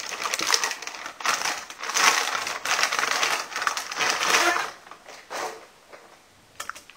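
Plastic packaging crinkling and rustling in bursts as a graphics card is unwrapped by hand, stopping about five seconds in.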